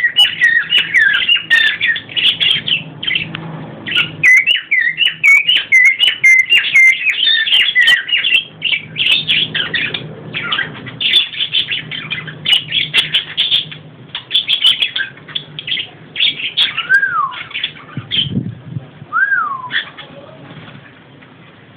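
A colony of budgerigars chattering and warbling in rapid, overlapping chirps, with a cockatiel whistling among them. The chatter is densest in the first half and thins out, leaving a few separate rising-and-falling whistles near the end.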